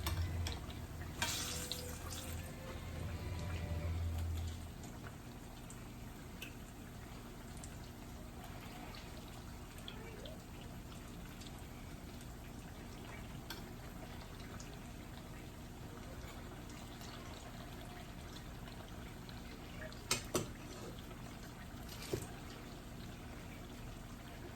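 Turon rolls frying in oil over medium heat: a faint steady sizzle with scattered small pops. A low hum runs for the first four seconds or so, and a few sharp clicks come near the end.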